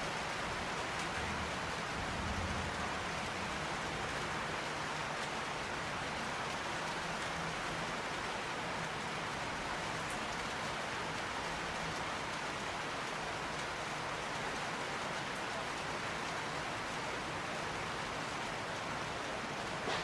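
Steady rain falling in an even hiss, with a faint low rumble of distant thunder about two seconds in.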